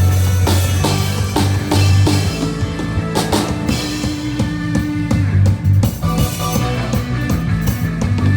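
A live rock band playing at a sound check: drum kit with regular hits, bass guitar notes and electric guitar.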